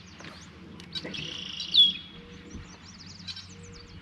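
Birds singing: a loud buzzy call that slides down into a clear whistle between about one and two seconds in, followed by quick, high chirps.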